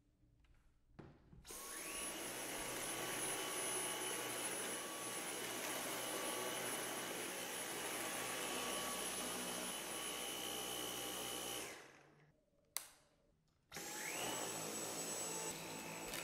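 Dyson V10 cordless stick vacuum's motor starts with a rising whine and runs steadily in suction mode 2, then winds down near twelve seconds. After a click it starts again with a rising whine and runs at a lower pitch in suction mode 1.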